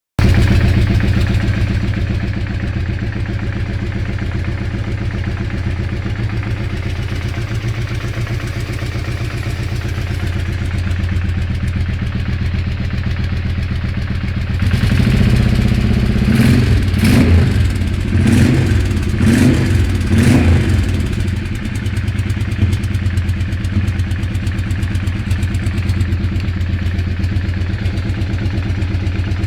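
An engine idling, blipped up in revs about five times in quick succession about halfway through, then settling back to idle. The owner finds the engine's sound weird.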